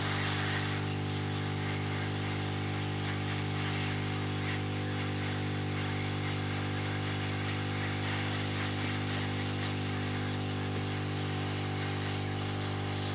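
Hot air rework station's reflow gun blowing at low airflow while solder paste reflows on the board. A steady motor hum runs under a rushing hiss of air.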